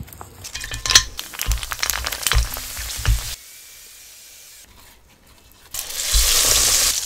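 Food deep-frying in hot oil, sizzling and crackling with many small pops. It drops to a quieter stretch midway, then a loud, even sizzle starts again about six seconds in.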